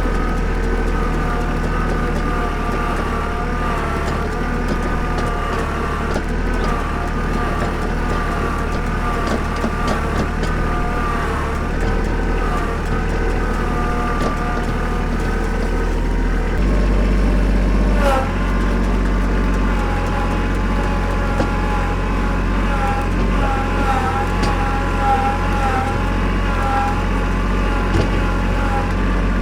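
Engine of heavy farm machinery running steadily under load, with a wavering whine above the engine note. The engine note drops and settles into a new pitch a little over halfway through.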